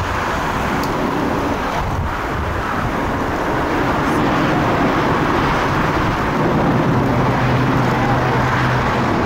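Emirates Airbus A380-861's four Engine Alliance GP7200 turbofans at climb power just after takeoff: a steady, broad jet engine noise that grows a little louder about four seconds in, with a low steady hum joining about seven seconds in.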